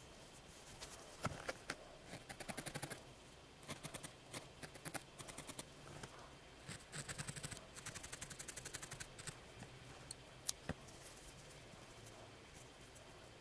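Felting needle stabbing repeatedly into a small ball of wool in quick runs of sharp pokes, about ten a second, with pauses between runs. One sharper click stands out about ten seconds in.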